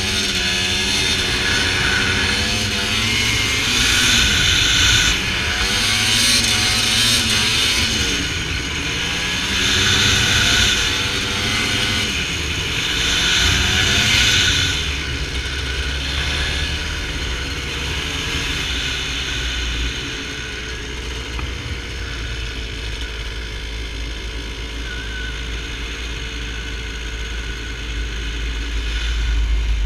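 Dirt bike engine revving up and easing off in repeated surges, then settling into a steadier, lower drone about halfway through. A steady low wind rumble on the microphone runs under the second half.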